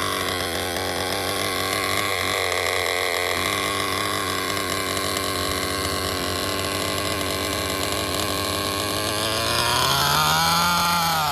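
HPI RS4's small two-stroke nitro engine running at a steady idle with its drive belt thrown, so it turns without driving the car. Near the end it is revved up once and falls back.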